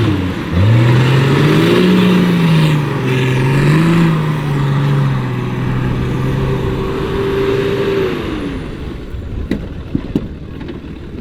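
Off-road 4x4 competition vehicle's engine revving hard, its pitch rising and falling repeatedly over a loud wash of noise, then fading away about eight seconds in. A few sharp knocks follow near the end.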